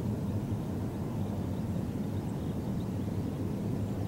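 Steady low rumble of a distant Ohmi Railway 800-series electric train running toward the listener.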